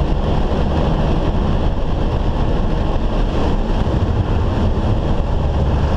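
Heavy rain pelting a moving car's windshield and roof, over steady road and engine rumble, heard from inside the cabin.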